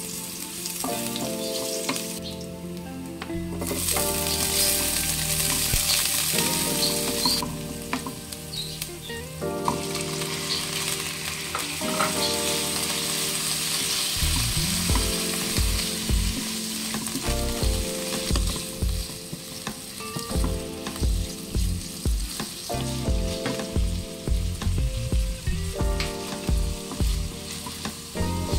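Garlic, onion and diced pork sizzling in hot oil in a wok, stirred with a wooden spatula. The sizzle surges louder about four seconds in and again around ten seconds. A run of rhythmic low thumps comes through the second half.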